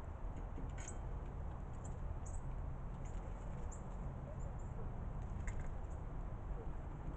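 A steady low rumble of outdoor background noise, with faint, short high ticks scattered through it every second or so.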